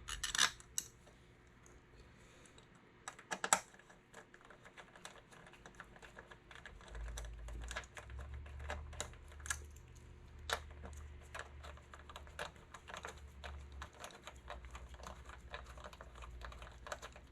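Small hex bolts being run down by hand into a motorcycle's fuel-tank gas cap: a string of light irregular metal clicks and ticks, with two sharper knocks in the first few seconds and the clicking growing busier about six seconds in.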